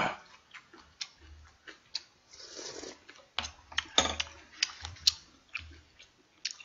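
Close-miked clicks and crackles of salt-grilled king prawns being peeled by hand and eaten, with a few dull knocks.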